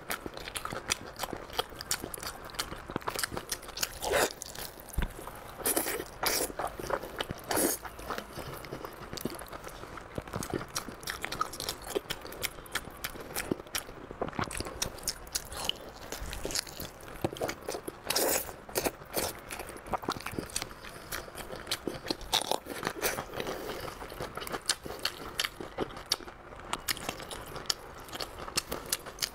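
A person eating close to the microphone: repeated biting and chewing of food, with many short, sharp, irregular crunches and clicks.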